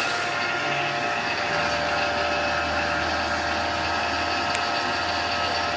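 Refrigeration vacuum pump running steadily, evacuating the refrigerant lines of a split air-conditioner conversion to below 500 microns. A lower hum joins about a second and a half in.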